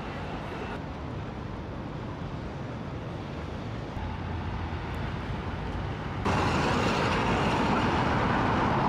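City street ambience with traffic noise, a steady hiss that suddenly gets louder about six seconds in.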